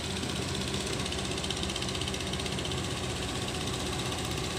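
Kobelco hydraulic excavator's diesel engine running steadily while it works its bucket in mud, with a fast, even clatter.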